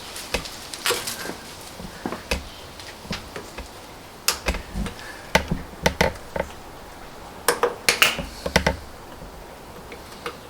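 Irregular sharp clicks and taps, some in quick clusters, of needle-nose pliers gripping and working at a screw lodged in a car tire's tread.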